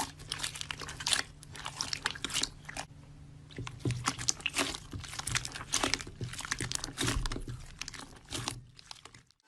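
Slime being squeezed and kneaded close to the microphone, giving a dense, irregular run of crackles and crunches. The crackling thins out briefly about three seconds in and stops just before the end.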